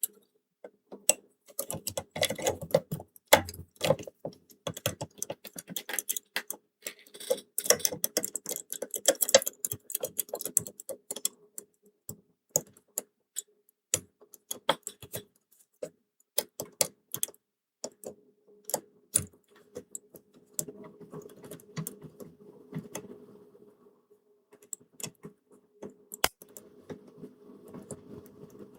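Metal lock picks clicking and scraping inside a Belfry 910-8186 pipe-key padlock held under tension with a homemade stainless-tube tensioner. Irregular sharp clicks, busiest in the first half and sparser later.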